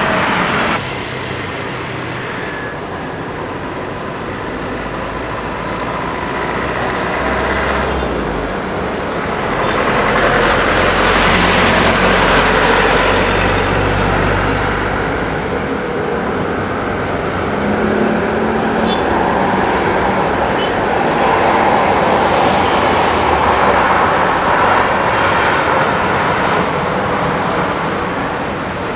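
Rumbling engine and traffic noise with no clear tones. It drops suddenly about a second in, then swells loud twice, once around the middle and again near the end.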